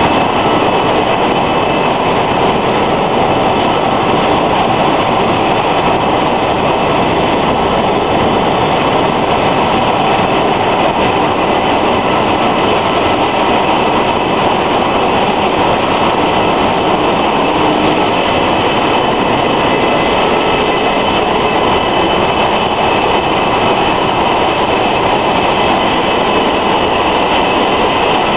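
Mineral-water bottling line machinery running: a loud, steady industrial din with a few steady high whining tones over it.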